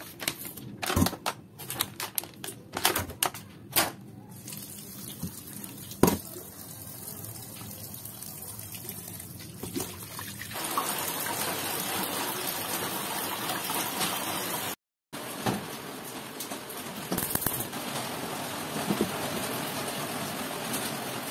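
Kitchen tap running into a stainless steel bowl in the sink while hands rinse food in it: a few clinks and knocks of handling at first, then a steady rush of water that grows louder about ten seconds in, with a brief break about fifteen seconds in.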